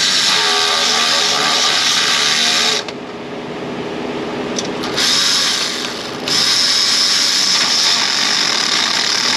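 A handheld power tool running in three spurts of a few seconds each, with short pauses between, as bolts are run out during exhaust manifold removal.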